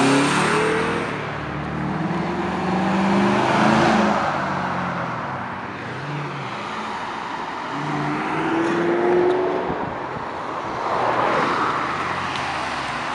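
Cars accelerating away one after another, each engine note swelling as it passes and climbing in revs, with tyre and road noise between; near the end an air-cooled Porsche 911 Carrera flat-six pulls past.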